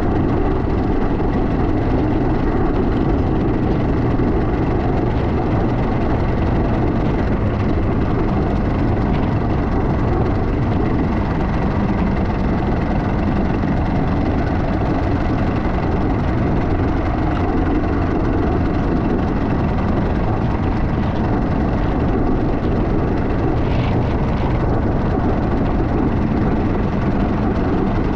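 Kawasaki KMX200's two-stroke single-cylinder engine running steadily while the bike is ridden at an even pace.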